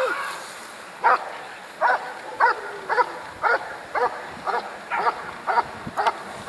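Airedale Terrier barking at the helper in short, sharp barks, about two a second, while guarding him after releasing the bite sleeve.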